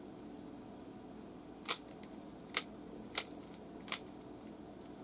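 Rubik's cube layers being twisted by hand: four sharp plastic clicks in about two seconds, with a few fainter ones between.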